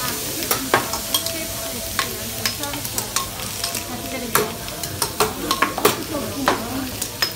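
Food sizzling steadily on a teppanyaki steel griddle, with about ten sharp, irregular metal clicks of a spatula striking and scraping the griddle.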